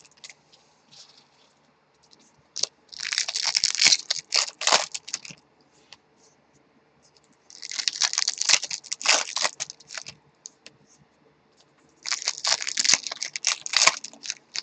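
Foil wrappers of Bowman baseball card packs being torn open and crinkled by hand. There are three crackling bursts of a couple of seconds each, with near quiet between them.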